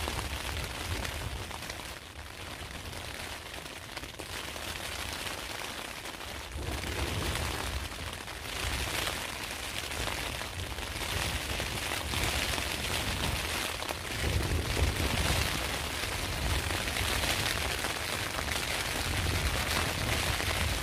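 Rain and wind beating on a tent, heard from inside: a steady hiss of rain on the fabric, with low rumbling gusts that swell and ease several times.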